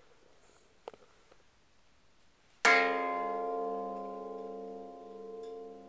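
A crystal plate struck once, about two-thirds of the way in, ringing on with several steady tones that slowly fade, the lowest tone pulsing.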